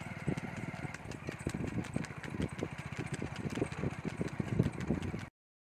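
A small engine running steadily at low speed, with frequent irregular knocks and clatter over it. The sound cuts out abruptly near the end.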